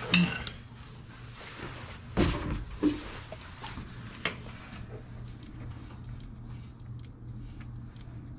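A few clicks and clunks from a hand grease gun being moved to and coupled onto the grease fittings of trailer suspension shackles, over a low steady hum.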